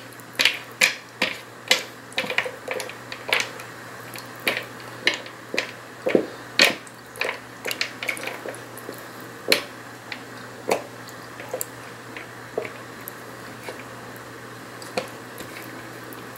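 A hand squeezing and stirring a wet, watery dough mix with ice cubes in a plastic mixing bowl: irregular sharp clicks and squelches as the ice knocks against the bowl. The clicks come several a second at first and thin out in the second half.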